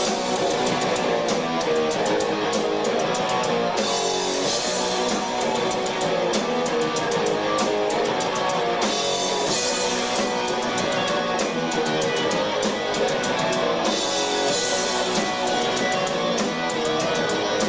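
Rock band playing live: electric guitar over a drum kit keeping a steady beat, with no singing.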